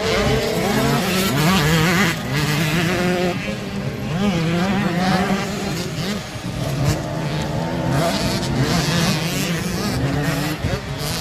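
Motocross dirt bike engines revving hard on the track. The pitch climbs and drops again and again as the riders work the throttle and shift gears.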